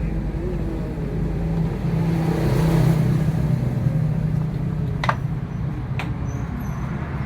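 A motor vehicle engine running steadily, swelling louder about two to three seconds in, with two sharp clicks near the end.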